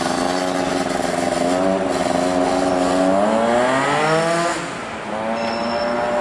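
Electric city tram rounding a curve in the rails, giving a loud pitched squeal of several tones at once. The pitch wavers, climbs about three to four seconds in, then drops off and settles into a steadier tone near the end.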